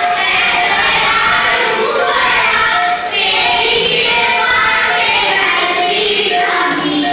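A group of children singing together in unison, with musical accompaniment playing through a loudspeaker.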